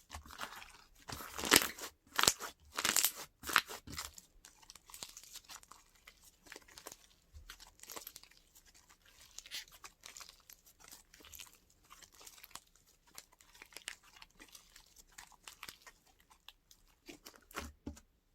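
Slime being pressed, stretched and poked by hand, giving dense crackling, popping and tearing sounds. The crackles are loudest in the first few seconds, then go on more softly.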